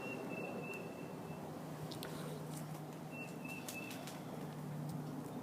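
A small bird whistling a short run of high, even notes, twice, about three seconds apart, with a few light clicks in between.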